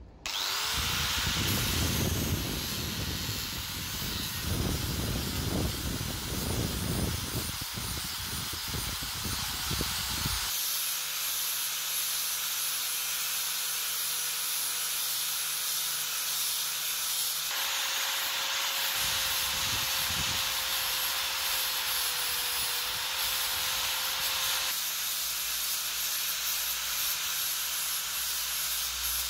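Angle grinder with an abrasive disc running at a steady whine and hissing as it grinds down the white handle scales of a knife held in a vise. The grinding is heavy with a low rumble for the first ten seconds, then turns to a lighter, steadier hiss.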